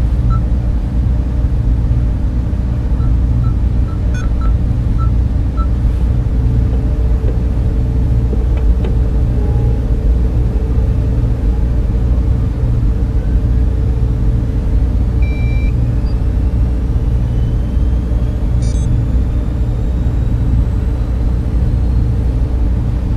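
Steady deep electronic drone of a sci-fi ambience, with a row of short soft beeps about three to six seconds in, a single brief beep around fifteen seconds, and faint slowly rising tones through the second half.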